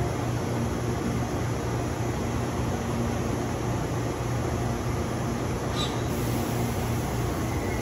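Steady low hum and hiss of a stationary 455/413-series electric multiple unit idling at a platform, its onboard equipment running. A brief high squeak about six seconds in.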